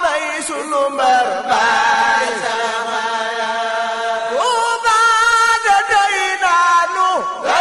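Religious chanting: a voice sings long held, wavering notes with sliding turns between pitches, in an Arabic-style devotional melody.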